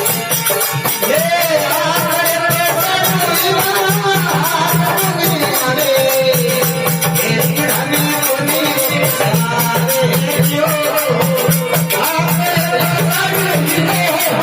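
Rajasthani folk bhajan music: a wavering melody line over fast, even jingling percussion and a pulsing drum.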